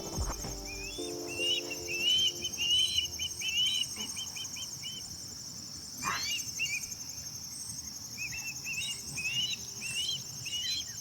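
Runs of short, rising, whistled bird chirps, with one longer downward-sliding call about halfway through, over a steady, pulsing, high-pitched insect drone.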